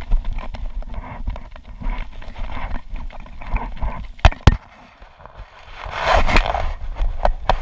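Handling noise from a GoPro camera as its helmet mount is put on: irregular rubbing and crackling, two sharp clicks about four seconds in, then a short burst of rustling.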